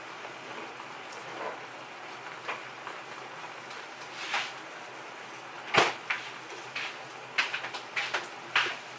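Refrigerator door shut with a sharp thud a little before six seconds in, followed by a quick cluster of light clicks and knocks from items being handled, over a steady hiss from a lit gas burner.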